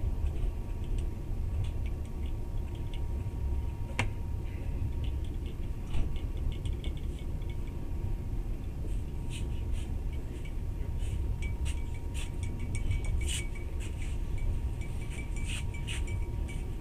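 Steady low rumble of a moving passenger train heard from inside the carriage, with a sharp click about four seconds in, a knock about two seconds later, and light clinking and rattling that grows busier from about nine seconds in.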